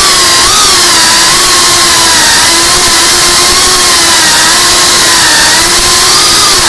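FPV quadcopter's motors and propellers whining loudly, the pitch dipping and rising with the throttle.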